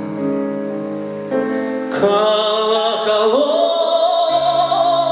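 Music: the song's accompaniment holds chords between sung lines. A new chord enters about two seconds in, and after about three seconds a high held line with vibrato rises over it.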